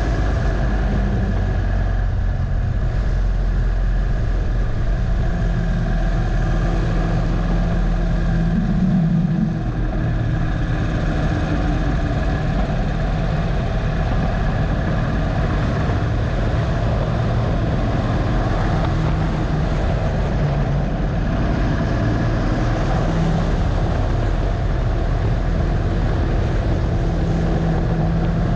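Harley-Davidson Dyna Low Rider's air-cooled V-twin running under load at track speed, heard from a camera mounted on the bike. The engine note briefly rises about eight seconds in, then dips for a moment before settling steady again.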